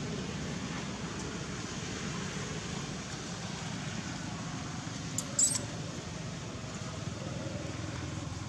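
Steady outdoor background noise, with one brief sharp high crackle a little after five seconds in.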